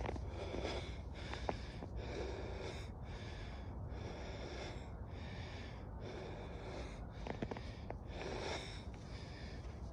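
A hiker breathing hard close to the phone's microphone, breaths in and out following each other rhythmically, over a steady low rumble.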